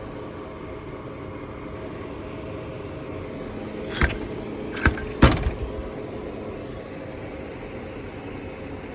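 A steady mechanical hum with a fixed low tone, broken about four to five seconds in by three sharp clicks close together, followed by a couple of fainter ones.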